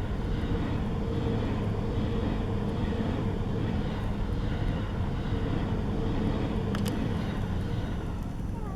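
Joban Line train running at speed: a steady heavy rumble with a faint steady tone over it, and a brief sharp click about seven seconds in.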